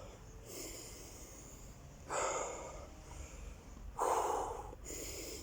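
A man breathing hard as he catches his breath after a set of burpees: heavy, noisy breaths, a faint one under a second in and two stronger ones about two and four seconds in.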